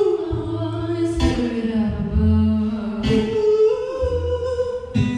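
Live song: a woman singing long held notes, accompanied by keyboard and acoustic guitar chords with low bass notes changing every second or two.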